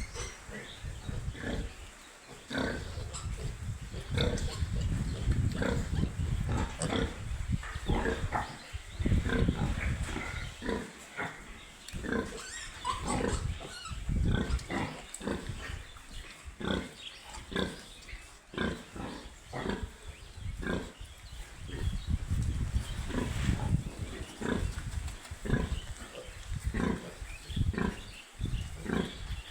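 Piglets grunting and squealing, many short calls in quick succession, with a low rumbling noise underneath at times.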